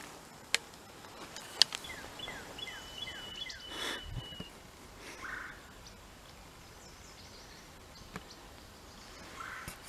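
Wild turkey calling: a run of about six short notes, each falling in pitch, spaced a fraction of a second apart. It comes after two sharp clicks.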